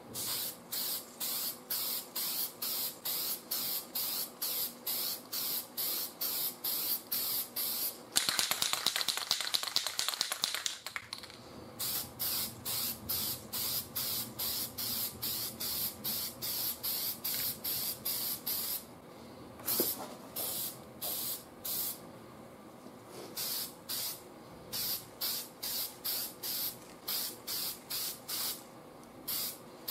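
Aerosol can of primer spraying in short hissing bursts, about two a second, with one longer spray about eight seconds in and a brief break a little past the middle.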